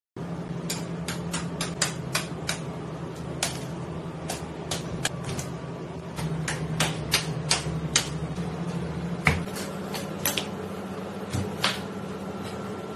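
Irregular sharp clicks and knocks of a knife and tuna meat being handled on a plastic cutting board, over a steady low hum.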